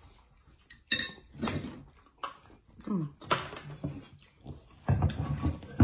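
Scattered clinks of forks and utensils on plates during a meal, with a few short murmured voice sounds.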